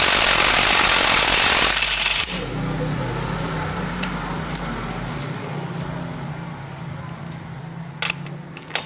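Mailtank SH-53 cordless impact wrench hammering on a motorcycle's tight rear axle nut for just under two seconds at the start, then a quieter steady hum with a few scattered clicks.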